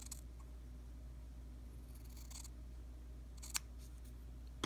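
Small scissors cutting through a pad of Japanese cotton: a soft slicing hiss about two seconds in, then one sharp click of the blades closing about three and a half seconds in.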